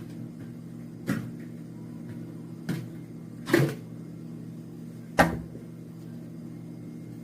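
Four sharp knocks and clacks of kitchenware being handled, over a steady low hum.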